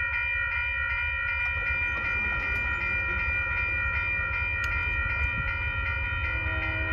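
Electronic railroad crossing bell ringing in a fast, steady rhythm as the crossing activates for an approaching train, over a steady low rumble. Faint low horn-like tones come in near the end.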